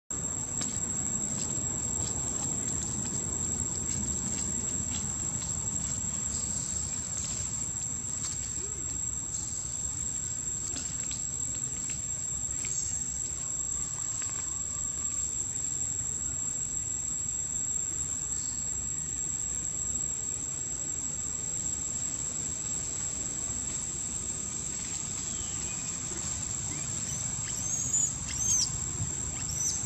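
Steady high-pitched drone of insects (crickets or cicadas) over low outdoor background noise, with a few short bird chirps near the end.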